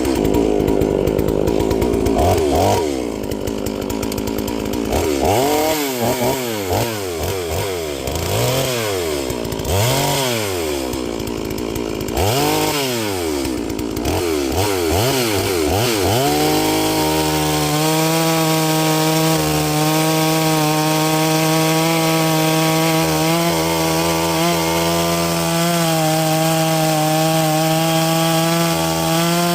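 Neotec NS 872 two-stroke chainsaw (a 381 clone) being revved up and down over and over, then held at a steady high speed from about halfway through, as it cuts through a log.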